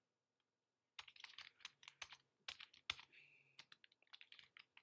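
Quiet typing on a computer keyboard: a quick, irregular run of key clicks that starts about a second in.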